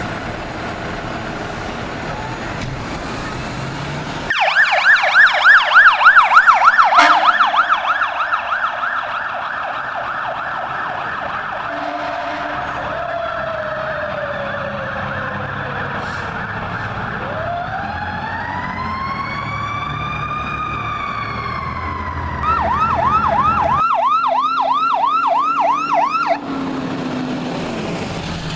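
Fire truck sirens over diesel engine and traffic noise. About four seconds in, a loud rapid yelp sounds for several seconds. It is followed by a slow wail that falls, rises and falls again, and a second rapid yelp near the end.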